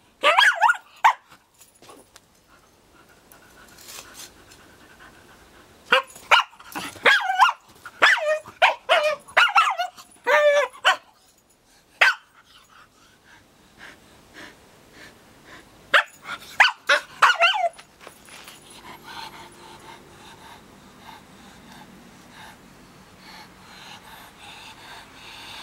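Hokkaido dog barking and growling in several volleys of sharp barks, aggressive barking aimed at a brown bear's paw held out to it in bear-hunting training. The barks stop about two-thirds of the way in, followed by quieter panting.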